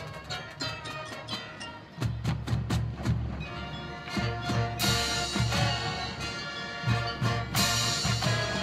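Marching band playing: light ticking percussion at first, low brass and drums coming in about two seconds in, then loud full-band brass chords around five seconds and again near the end.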